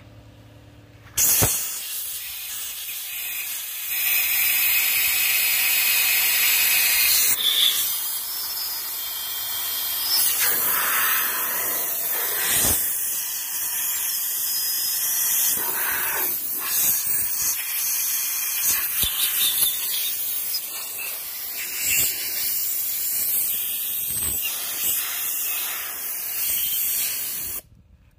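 Compressed-air blow gun hissing in long blasts as it blows out the oil galleys and bearing saddles of a washed Willys L134 engine block, clearing dirt that would otherwise ruin the new bearings. The hiss starts about a second in, changes in strength as the nozzle moves from hole to hole, and cuts off suddenly just before the end.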